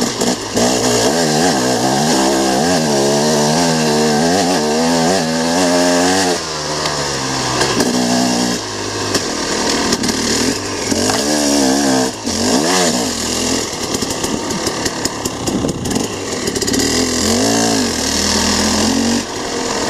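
Dirt bike engine revving up and down again and again as the throttle is worked over rough trail, over a steady rush of wind noise.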